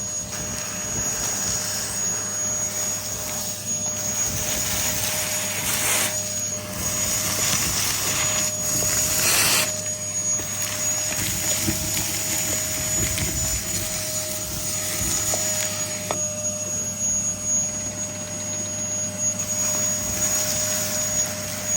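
Dyson DC14 upright vacuum cleaner running: a steady motor whine with a high thin tone over rushing air, swelling briefly a few times.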